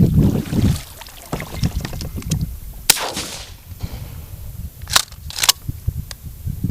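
A single shotgun shot about three seconds in, with a short echo trailing after it, aimed at a moorhen that is hit. About two seconds later come two sharp clacks half a second apart.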